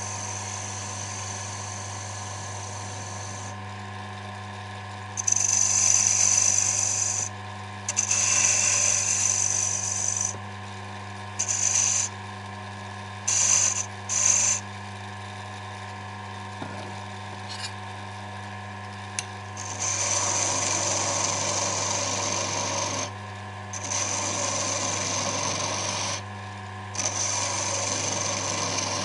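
Small wood lathe running with a steady motor hum while a hand-held turning tool cuts a small wooden knob, the cuts coming as about eight hissing scrapes of one to three seconds each, with a pause of several seconds in the middle.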